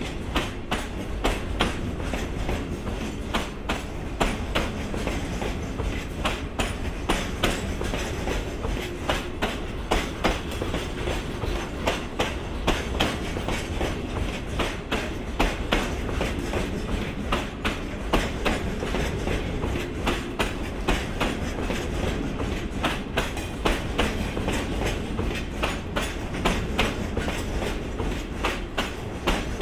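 A train of Hoki 10000 coal hopper wagons rolling past, the wheels clicking over the rail joints in a steady clickety-clack over a low rumble.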